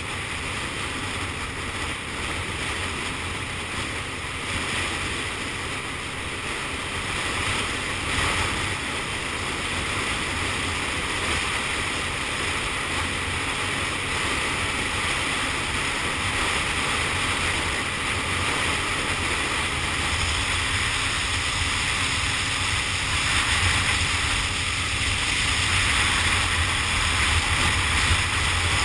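Steady wind rush on the microphone of a moving scooter, with a low rumble of the ride underneath, growing a little louder over the second half.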